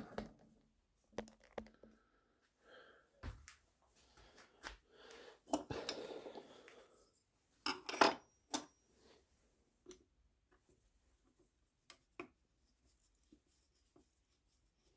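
Small metal and wood parts being handled on the workbench: scattered clicks and knocks, a stretch of scraping in the middle, and the loudest sharp clicks about eight seconds in, tailing off to a few faint ticks.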